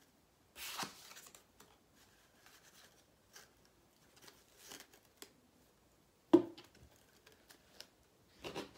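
Hands handling packaging and small items on a table: short bursts of paper and plastic rustling and light scrapes, with one sharp knock about six seconds in as something is set down on the tabletop.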